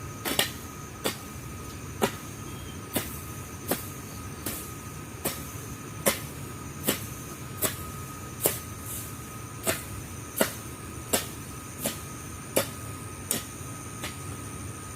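Hand tool chopping into weedy ground in a steady rhythm, about one sharp strike every three-quarters of a second, stopping just before the end.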